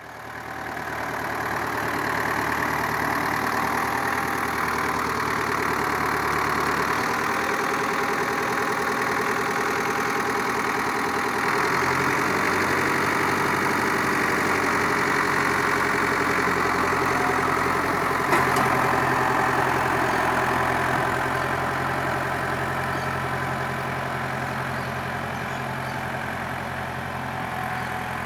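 Ford 6600 tractor's three-cylinder diesel engine running steadily, with one sharp click about eighteen seconds in.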